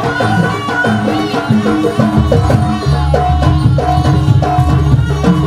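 Javanese jaranan dance music: a percussion-led ensemble with drum strokes and a bending melody line, loud and busy throughout. A deep low tone comes in about two seconds in.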